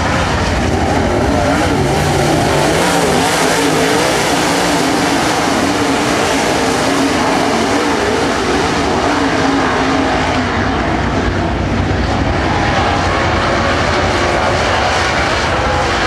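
A field of dirt Super Late Model race cars running hard around the track, their V8 engines blending into one loud, continuous drone whose pitch wavers as the cars go through the turns.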